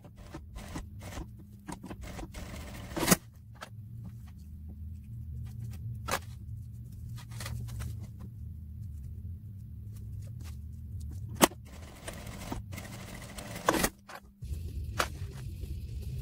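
Scattered clicks, snips and rustles of hands working with lace, tulle and elastic trim at a sewing table, including small scissors trimming, over a steady low hum. A few sharp clicks stand out, one about three seconds in and a sharper one past the middle.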